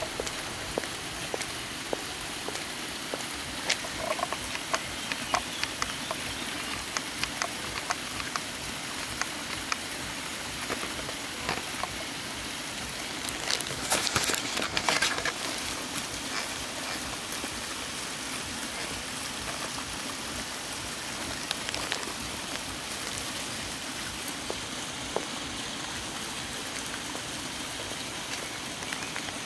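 Steady rain pattering, with many scattered sharp drop hits. About halfway through there is a brief louder rustling burst lasting a couple of seconds.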